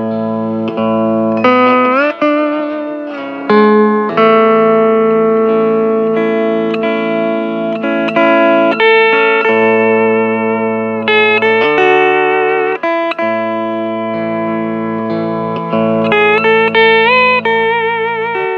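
Hawaiian steel guitar playing a slow melody, its notes sliding between pitches and held with vibrato, over a sustained backing accompaniment with a bass line.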